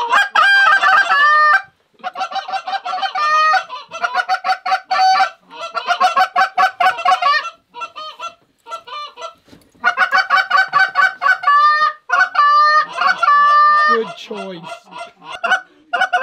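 Goose calls blown hard and fast by several callers in the pit blind: rapid strings of clucks and honks, some notes breaking sharply upward, calling to geese working overhead. The calling stops briefly a few times.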